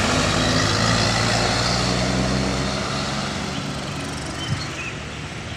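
Heavy truck engine running steadily as the truck passes and draws away, with tyre and road noise. The sound fades gradually over a few seconds.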